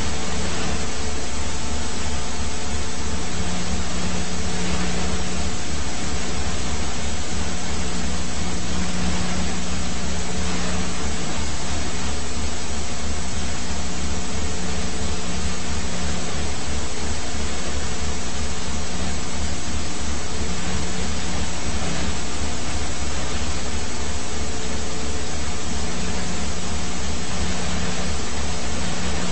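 Helicopter engine and rotor noise: a loud, steady rushing hum with a fast low throb that never lets up.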